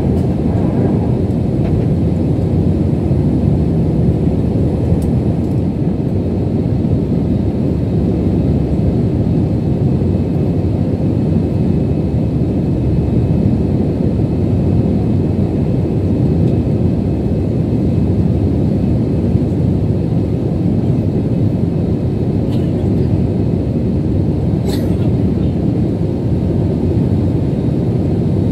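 Steady roar of a jet airliner's engines and rushing air, heard inside the passenger cabin during the climb after takeoff, with a faint click or two near the end.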